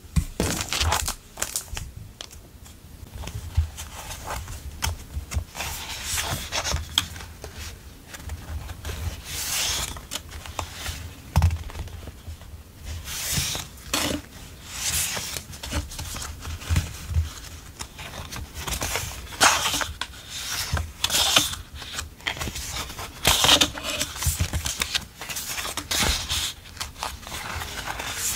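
Sheets of printed memo paper being handled and flipped through: repeated irregular rustles and slides of paper against paper, with light taps of the stack on the table.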